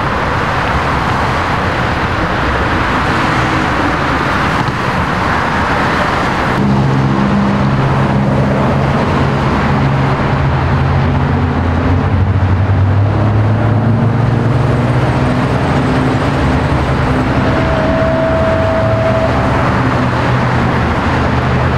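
Steady freeway traffic noise from cars and trucks passing at speed. About a third of the way in a low engine drone from an idling heavy vehicle joins it, and a brief steady tone sounds near the end.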